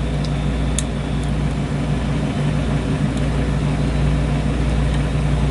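Steady low machine hum, with a few faint small clicks from the pick working the lock's pins, the clearest about a second in.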